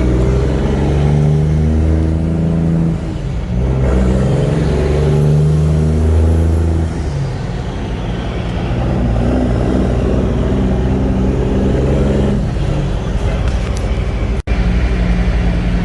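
Semi truck's Cummins ISX diesel engine running under way, its pitch stepping up and down a few times as the revs change. The sound cuts out for an instant near the end.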